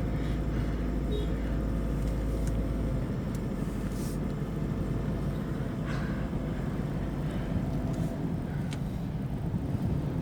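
Steady engine and road noise inside the cabin of a Toyota Fortuner 2.5 G with its 2KD-FTV four-cylinder turbodiesel, driving along, with a few light clicks.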